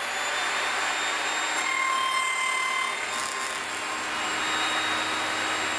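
Table saw running with a steady whine while its blade cuts a box-joint slot in an MDF board pushed through on a crosscut sled.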